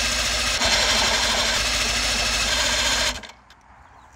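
A 50 hp Johnson outboard motor being cranked on its electric starter, with the cowling off. It cranks steadily and then cuts off about three seconds in without the engine firing: a failed start.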